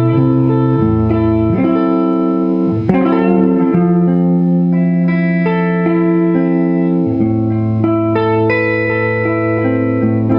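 Electric guitar playing slow, sustained chords that change every second or two, with a short click about three seconds in.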